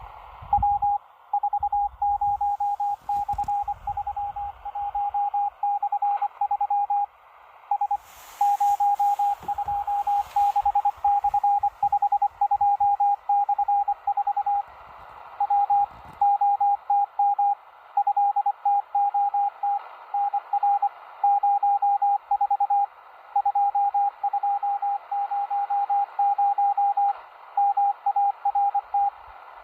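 Russian naval Morse code heard on a shortwave portable radio in upper sideband: a single-pitched beep keyed rapidly on and off in dots and dashes over steady band hiss. A few low thumps in the first seconds and a brief crackle of static about eight seconds in.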